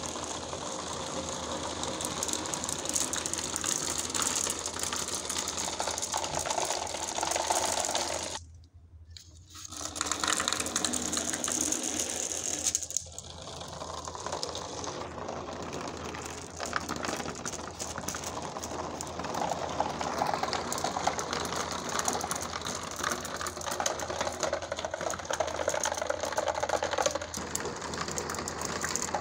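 Many glass marbles rolling down a cardboard marble run, a dense, continuous rattle of clicks as they knock together and against the track. The rattle drops away for a moment about nine seconds in, then carries on.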